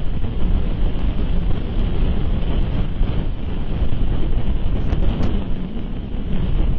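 Wind buffeting the microphone: a loud, steady rumble heaviest in the low end.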